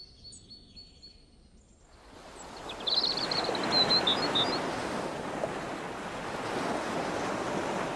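An even rush of outdoor noise, like wind or surf, swells in about two seconds in and then holds steady. A few short bird chirps sound over it soon after.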